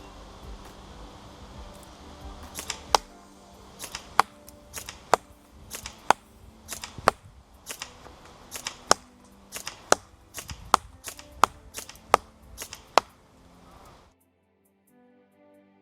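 VFC HK416 A5 airsoft electric gun firing single shots, about a dozen in steady succession, each heard as a pair of sharp clicks a third of a second apart, over background music. The sound cuts off suddenly near the end.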